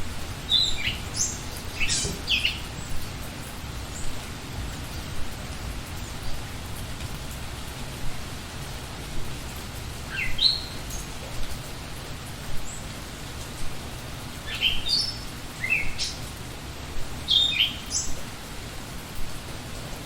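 Steady rain falling, with birds chirping in three short spells of quick, high, downward-sweeping notes: near the start, around the middle, and again toward the end.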